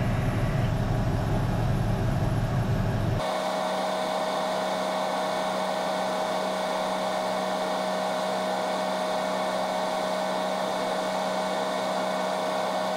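Mobile crane's engine running with a low rumble; about three seconds in the sound changes abruptly to a steady high whine, the machinery noise sped up under a five-times fast-forward.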